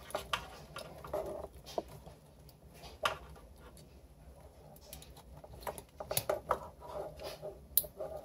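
Small plastic clicks, scrapes and rustles as cheap Molex power connectors are handled and pushed together, busier in the second half, with one sharp click near the end.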